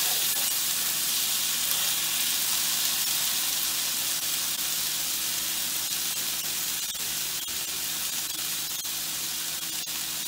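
Chopped onion, tomato and watermelon seeds frying in hot oil in a frying pan: a steady sizzling hiss with scattered small pops.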